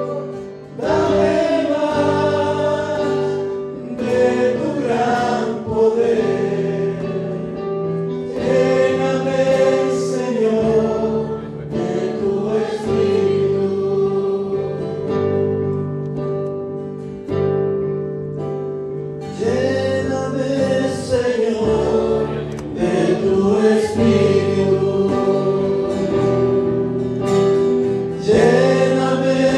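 Choir singing a Spanish-language Christian worship song over steady held instrumental notes, in phrases a few seconds long with short breaks between.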